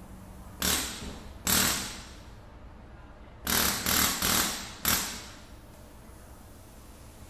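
Six sharp knocks, each ringing out briefly: two about a second apart, then four in quick succession.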